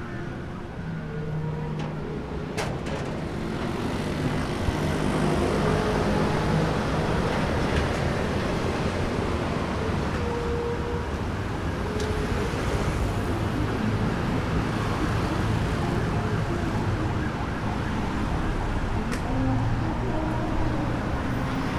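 City road traffic: a steady wash of passing cars and motorbikes that grows louder a few seconds in.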